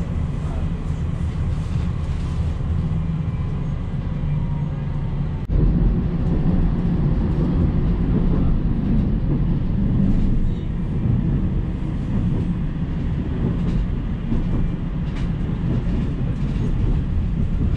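Tram running, heard from inside the car: a steady low rumble of steel wheels on the rails and the running gear, with a few faint clicks. It breaks off for an instant about five seconds in, then carries on a little louder.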